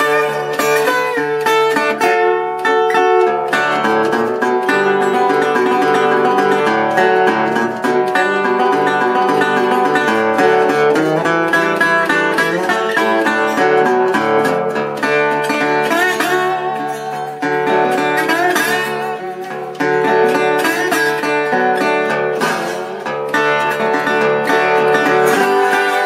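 A metal-bodied resonator guitar, fingerpicked with a thumbpick and played with a slide, in an instrumental country-blues tune with notes sliding up and down in pitch.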